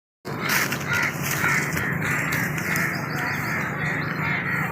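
Birds giving harsh, caw-like calls over and over, about two calls a second. The sound cuts in suddenly a quarter second in.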